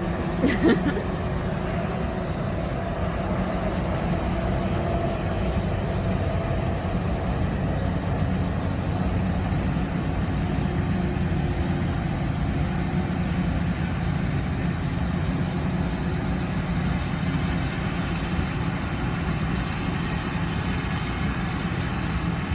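Self-propelled forage harvester running steadily while chopping maize, a constant deep machine hum. A short sharp sound comes about half a second in, and a thin high whine joins about two-thirds of the way through.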